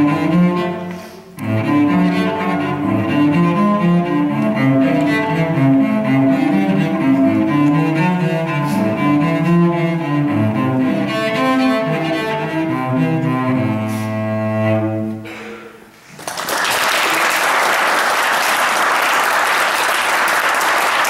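Solo cello playing the closing bars of a piece and ending on a long low held note. About a second after the note stops, an audience breaks into applause that carries on steadily.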